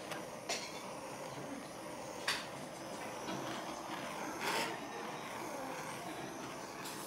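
Handheld butane torch flame hissing steadily, with a few short clicks and a brief louder burst of noise about four and a half seconds in.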